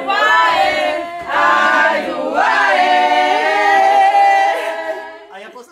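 Several voices singing together without instruments: a few short phrases, then one long held note that fades away near the end.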